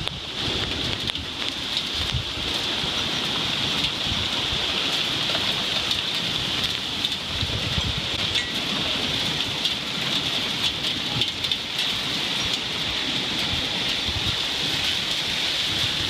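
Heavy rain pouring down in a severe thunderstorm: a dense, steady hiss of rain on the ground, roof and trees.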